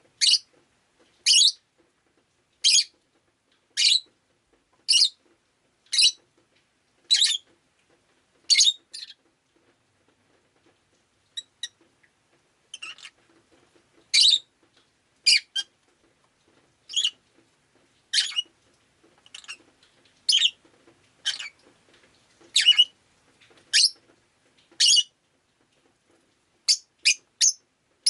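Rosy-faced lovebird giving short, sharp, high-pitched chirps at about one a second, with a brief lull about midway.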